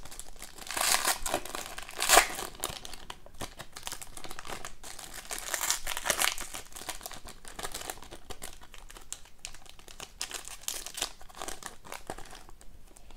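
Foil wrapper of an Upper Deck Ice hockey card pack crinkling and tearing as it is ripped open by hand, in uneven rustles with the loudest crackle about two seconds in.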